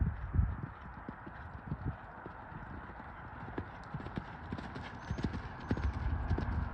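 Horse's hooves thudding dully and irregularly on soft arena sand, with a steady hiss underneath.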